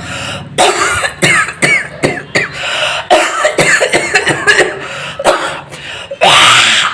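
A man coughing and hacking over and over in an exaggerated, comic style, with strained pitched sounds between the coughs. It ends about six seconds in with a long, loud, rasping clearing of the throat.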